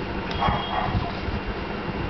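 A baby makes a short vocal sound about half a second in. Cloth rustles and low handling bumps run underneath.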